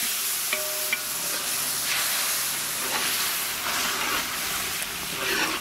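Red chili and ketchup sauce sizzling in a large metal pan over a wood fire, orange juice freshly added, while a spatula stirs it. It makes a steady hiss throughout.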